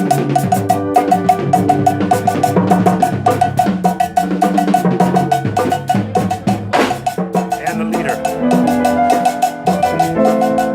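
Live band playing at a sound check: a drum kit and hand percussion beating steadily over a moving bass line, with a repeated higher note pulsing on the beat.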